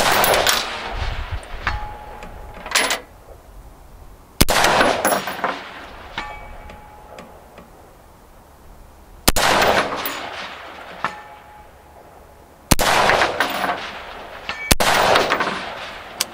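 Five rifle shots from a .223 Wylde AR-15 with a 24-inch Bear Creek Arsenal upper, fired a few seconds apart, each a sharp crack with a long echo fading after it. Roughly two seconds after the shots comes a faint ringing ding: the bullet striking a distant steel target.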